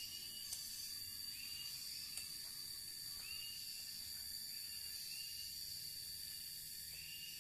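Outdoor insect drone: a steady high-pitched whine, with short chirps repeating every second or two and a couple of faint clicks.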